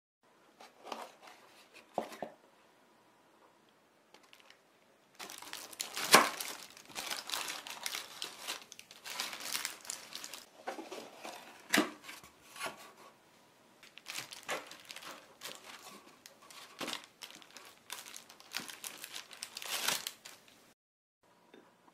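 Paper liners crinkling and rustling as crumble-topped dessert bars in molded-pulp takeout boxes are handled and cut with a knife. A couple of light clicks come first, then a long run of crinkling that stops suddenly near the end.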